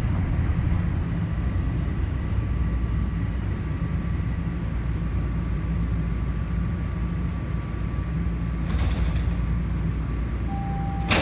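Inside a TTC Toronto Rocket subway car coming to a stop in a station: a steady low rumble with a faint steady motor whine. There is a short hiss near the end, then a sharp clunk with a brief tone as the doors are released to open.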